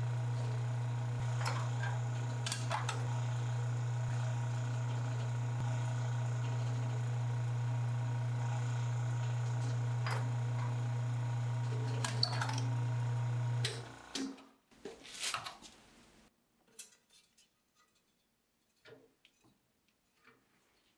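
De-airing pug mill running with a steady electric hum, a few knocks sounding as clay is pressed into its hopper. About fourteen seconds in the machine stops abruptly, leaving only faint handling sounds of the extruded clay.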